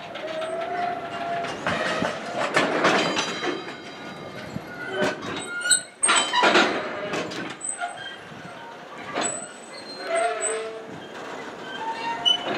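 Flat wagons of an intermodal container freight train rolling past, wheels clacking irregularly over the rail joints, loudest about halfway through. Short high squeals from the wheels come and go throughout.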